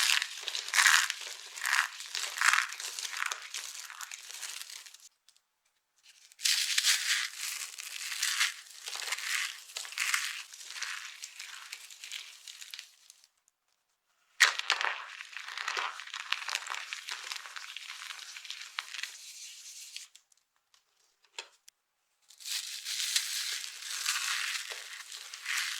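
Dry soap being crushed, a crisp crunching and crackling that comes in four spells of a few seconds each with short silent pauses between them; the third spell opens with a sharp crack about fourteen seconds in.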